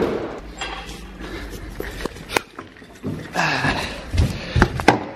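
A string of irregular knocks, clicks and clanks from hand work on the truck, the sharpest right at the start, with brief muffled talk around the middle.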